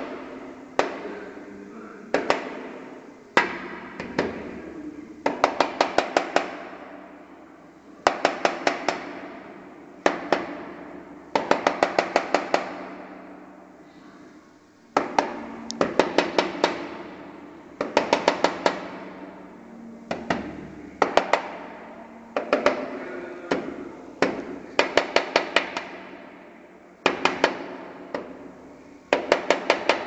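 Flameback woodpecker pecking hard at a window pane: short bursts of rapid, sharp taps on the glass, several strokes per burst and a burst every second or two. The glass rings briefly after each burst.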